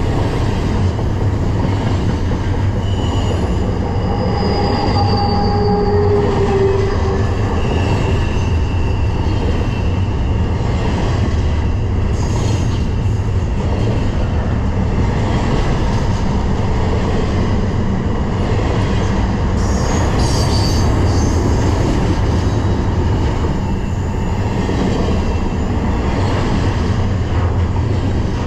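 BNSF intermodal freight train rolling past, a steady loud rumble of cars on the rails with a few brief high-pitched wheel squeals.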